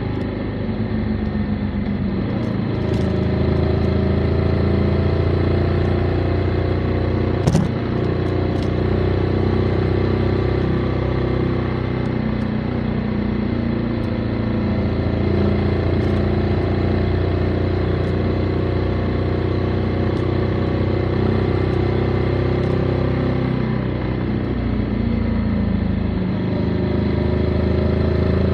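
Motorcycle engine running while riding, its note steady with small rises and falls as the throttle changes, dipping and picking up again near the end. One sharp click about seven seconds in.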